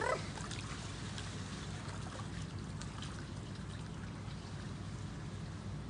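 Pool water gently splashing and lapping as swimmers move through it, over a steady low background hum.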